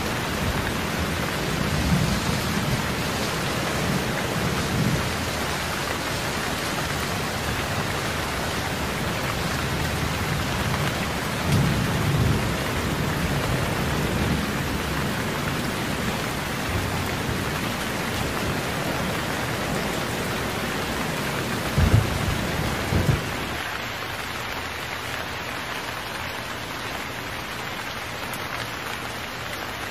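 Heavy rain pouring steadily, with low rolls of thunder several times and a sharper thunderclap a little over two-thirds of the way in. After that the rain is a little quieter.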